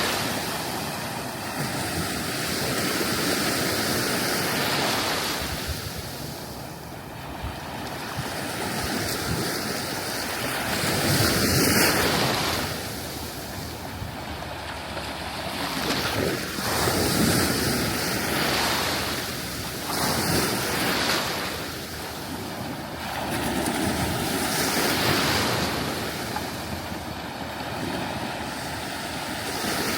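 Sea waves breaking and washing up a sandy beach, the surf swelling and falling every few seconds.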